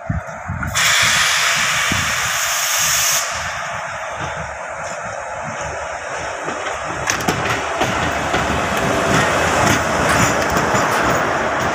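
Indian Railways electric locomotive passing slowly at close range: a loud hiss of released air starts suddenly about a second in and lasts about two seconds, then the steady running noise of the locomotive and its wheels on the rails goes on, with a few clicks from about halfway through.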